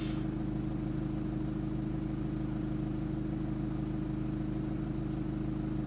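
BMW 3 Series diesel engine idling steadily, heard from inside the car's cabin.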